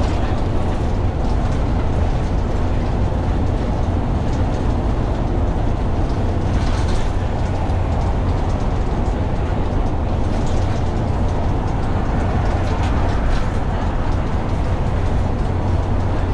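Dennis Dart single-deck bus on the move: a steady low engine drone under even road noise, with a couple of brief higher-pitched noises about seven and ten seconds in.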